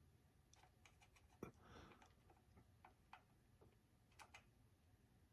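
Near silence with faint, irregular small ticks and clicks from close-up soldering work, a soldering iron being held to a wire and connector.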